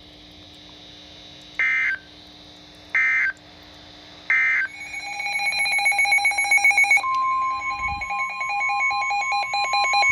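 Emergency Alert System data tones: three short, loud electronic bursts, the end-of-message code of the flood warning just read. About half a second later a rapid pulsing, warbling electronic alarm starts up, and about seven seconds in a steady single-pitch attention tone sounds under it, announcing the next weather alert.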